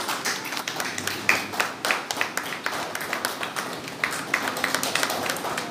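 Audience applauding: many hands clapping together in a steady patter of sharp claps, cut off abruptly at the end.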